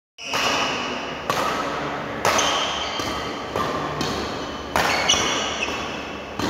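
Badminton rally: racket strikes on the shuttlecock about once a second, each sharp hit followed by a long echoing tail in the hall, with brief high squeaks between hits.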